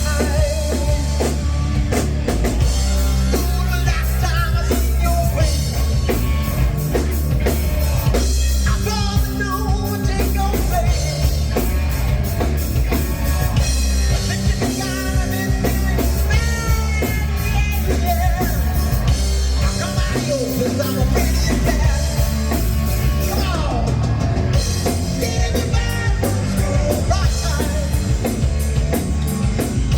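Rock song playing, with singing over a drum kit and a steady, heavy bass line.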